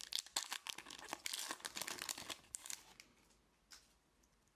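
Foil wrapper of a Pokémon XY Evolutions booster pack crinkling and tearing as it is ripped open, a rapid run of crackles that stops about three seconds in. A single faint tick follows near the end.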